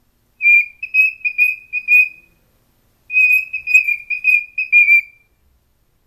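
Young male cockatiel singing: two phrases of short whistled notes on nearly one pitch, each about two seconds long, with a brief pause between them.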